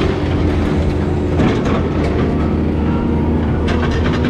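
Hydraulic excavator running steadily with the low drone of its diesel engine, working a car-dismantling claw on a scrapped car, with a few short metal clanks.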